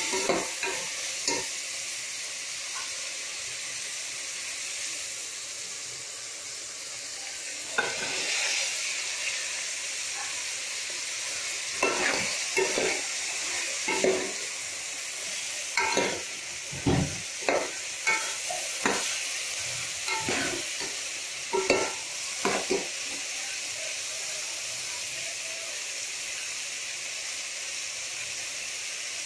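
Mixed vegetables (carrots, green beans, tomato and cauliflower) sizzling in oil in a pot, with a steady hiss. A metal spoon scrapes and stirs them in spells of quick strokes, with only the sizzle between.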